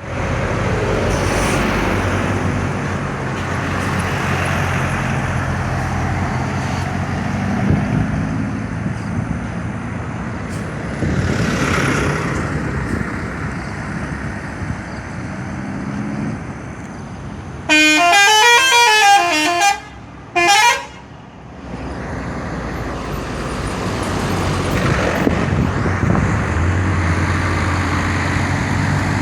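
Traffic and engine noise from the road, then about two-thirds of the way in a bus's multi-tone 'telolet' musical horn plays a fast warbling tune for about two seconds, followed by one short blast. The horn is the loudest sound.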